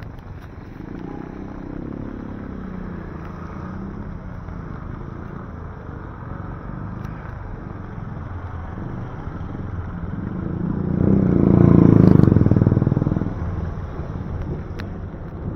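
Traffic passing on a wet street: a car goes by early on, then a motorcycle draws near, passes close about twelve seconds in as the loudest sound, and fades away.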